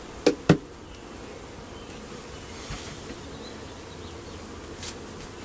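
Honeybees buzzing steadily over an open hive. Just after the start come two sharp knocks a quarter second apart, the hive tool knocking against the wooden frames.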